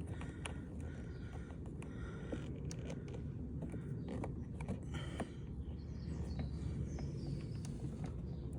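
Faint scraping and small clicks of a flat-head screwdriver and the plastic puddle light unit as the light is worked into a tight opening in the car's door trim, over steady outdoor background noise.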